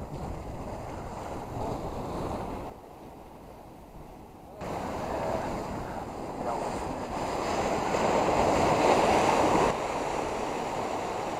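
Surf surging and washing over the jetty's boulders, with wind on the microphone. The wash drops away sharply for about two seconds after the first few seconds, then builds and is loudest a little past the middle.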